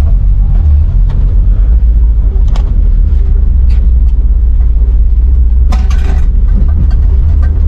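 Volkswagen Kombi van driving along a dirt road: a loud, steady low rumble of engine and road noise, with scattered knocks and rattles from bumps.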